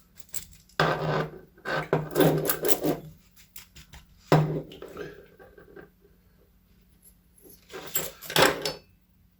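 Handling noises of a door lock cylinder being worked to get its last two pins out: three bursts of scraping and rubbing, the middle one starting with a sharp knock about four seconds in.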